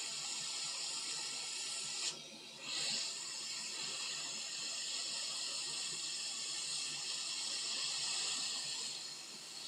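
Hot air rework station blowing a steady hiss of air onto a surface-mount MOSFET to reflow its solder. The hiss briefly drops about two seconds in, then returns, and eases off near the end.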